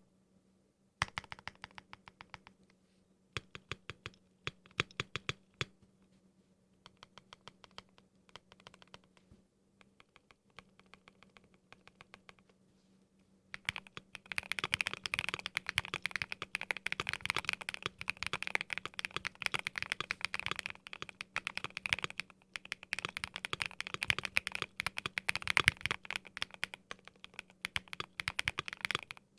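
Typing on a Keychron Q1 aluminium mechanical keyboard with lubed Sangria switches, foam-modded inside. Short runs of separate keystrokes with pauses for the first half, then fast continuous typing from about halfway through.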